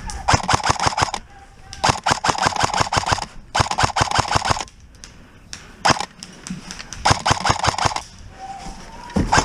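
AK5C airsoft electric rifle firing several full-auto bursts of rapid clicks, about a dozen shots a second with the gearbox whirring under them, plus one single shot near the middle.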